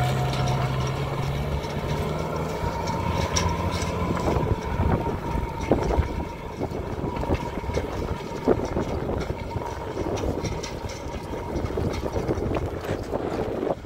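Pickup truck engine running as the truck drives off along a muddy dirt track, its steady hum fading out after about four seconds. After that there is a rough, noisy background with scattered short clicks and knocks.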